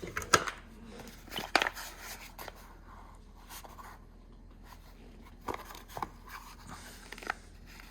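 Hand tools being handled: several scattered light clicks and knocks of metal tools being picked up and set down.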